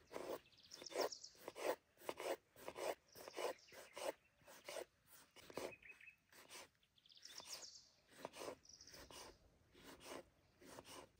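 Small kitchen knife slicing and dicing a tomato on a wooden cutting board: short, faint cuts about twice a second as the blade goes through the flesh and taps the board. Birds chirp in the background.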